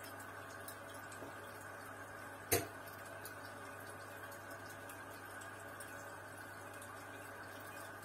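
Air bubbling steadily through an aquarium's air-driven sponge filters and airline, a soft watery fizz over a steady low hum. One sharp knock about two and a half seconds in.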